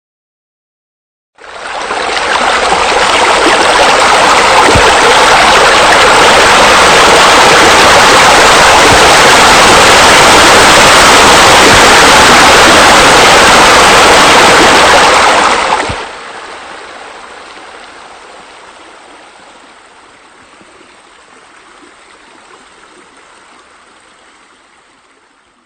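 Steady rush of falling water, as from a pool waterfall. It fades in after a short silence, holds loud and even, then drops sharply about two-thirds of the way through and fades away quietly.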